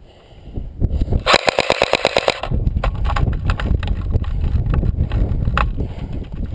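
Airsoft gun firing a rapid full-auto burst of about a dozen shots in just over a second, about a second in, with a few lone clicks later, over a low rumble of wind and movement on the body-worn camera's microphone.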